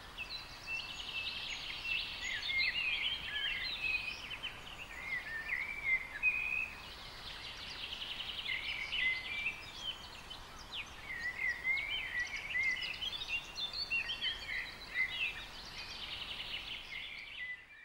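Several songbirds singing together: a continuous chorus of overlapping chirps, short rising and falling whistles and rapid trills.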